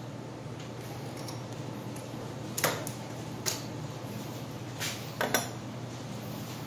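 Metal bicycle fork parts being handled, giving light metallic clicks and clinks: about five short taps in the second half, the last two close together, over a steady low hum.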